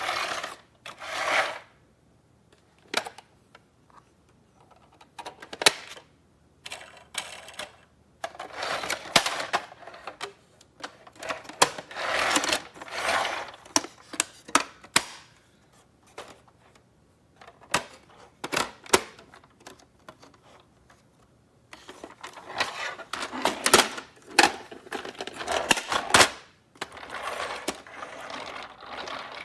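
Hard plastic parts of a toy clicking and rattling as it is handled by hand, in irregular bursts of sharp clicks and knocks.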